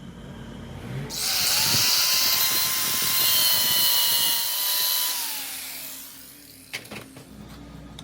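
A small power tool runs for about five seconds, with a whine that rises as it spins up and falls as it winds down. A heavy hiss comes with the whine, as from grinding or brushing metal. Two short clicks follow near the end.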